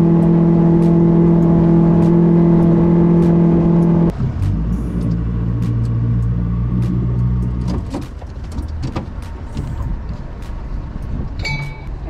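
Yamaha outboard motor running steadily under way, then throttled back sharply about four seconds in to a lower note, and dropping lower and quieter again about eight seconds in as the boat slows, with a few light knocks.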